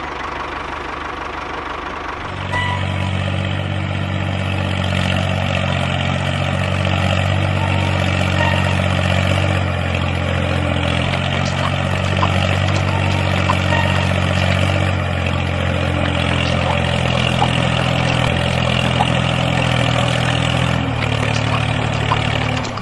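Engine running steadily at an even pitch, given as the sound of a model walk-behind tractor. It grows louder about two and a half seconds in and drops back just before the end.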